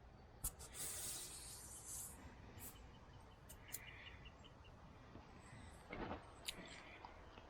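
Quiet outdoor background with a short, rapid high-pitched trill about three and a half seconds in, like a bird or insect call, and a few faint clicks and rustles.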